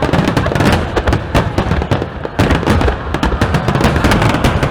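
Fireworks going off in a dense barrage: many sharp bangs and crackles a second over a continuous low rumble.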